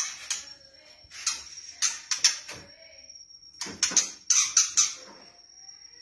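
Caged white-rumped shama giving short, sharp, harsh call notes in quick clusters, a burst of several at a time, with gaps between. A steady high-pitched whine runs underneath.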